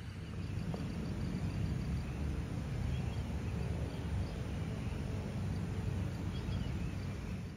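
Steady outdoor background noise, mostly a low rumble, with faint insect chirping.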